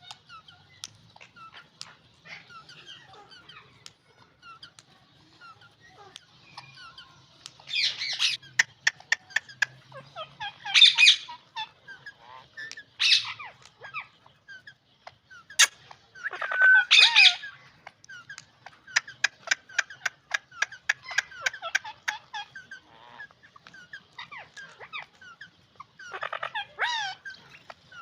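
Ringneck parakeets calling: loud, harsh squawks every few seconds, with fast, even runs of clicking chatter and softer twittering between them.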